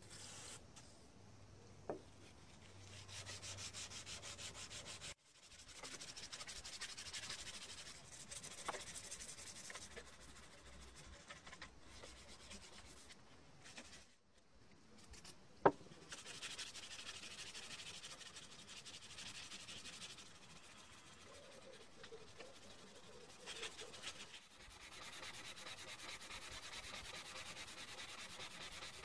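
Hand sanding of a 1095 carbon-steel knife blade with abrasive paper, rhythmic back-and-forth rubbing strokes with a few short pauses. A single sharp tap about halfway through.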